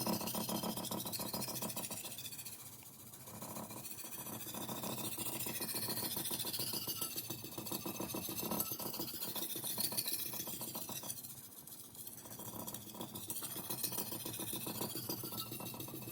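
A knife blade pushed and pulled across a finishing whetstone: a continuous gritty scraping that swells and fades with the strokes. This is the second side of the edge being worked to raise a burr.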